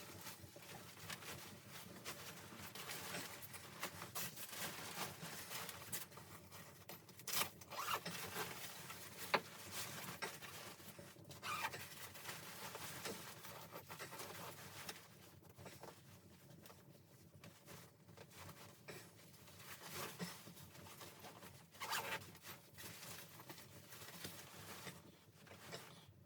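Irregular rustling and scraping of things being handled close by, with scattered small clicks and ticks.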